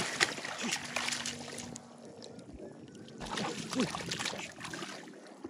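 Hands splashing and churning shallow muddy water in a flooded rice paddy while groping in the mud for a fish. The splashing comes in two spells, with a quieter gap around the middle.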